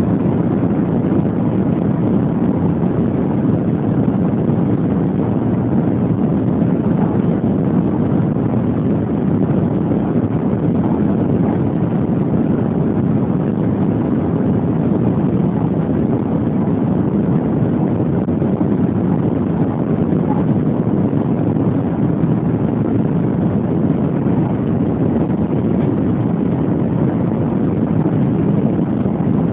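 Steady rushing cabin noise of the Shanghai Transrapid maglev train cruising at about 300 km/h, heard through a mobile phone's microphone.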